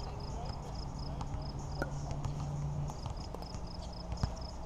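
Pickleball paddles striking a hard plastic ball during a rally: sharp single pops about two and a half seconds apart, about two seconds in and near the end, over a faint, evenly repeating high chirping.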